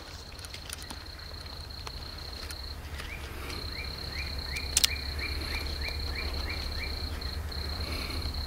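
Night chorus of calling insects: a steady high trill that breaks off briefly twice, with a run of about ten quick rising chirps in the middle, over a low rumble and one sharp click.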